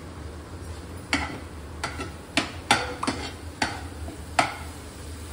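A steel spoon stirring onion-tomato masala in a coated frying pan, knocking against the pan about seven times at uneven intervals, with the masala sizzling underneath.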